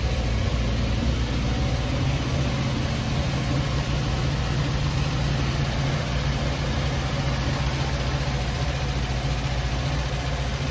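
1955 Chevrolet 3100 pickup's small-block Chevrolet V8 idling steadily.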